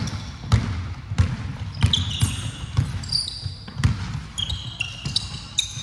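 Basketball dribbled on a hardwood court, bouncing about once every two-thirds of a second. From about two seconds in, sneakers squeak in short high chirps on the floor.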